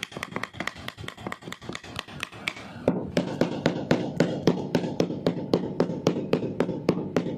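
Upholstery staple gun firing in rapid succession, about six sharp clicks a second. About three seconds in, the strikes turn fuller and lower.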